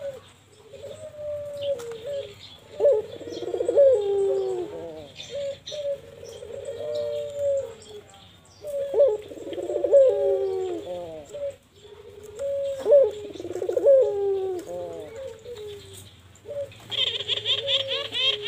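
Ringneck dove (burung puter) cooing in repeated rolling phrases, with three louder bursts a few seconds apart and softer coos between them. Near the end a brief high chirping trill comes in.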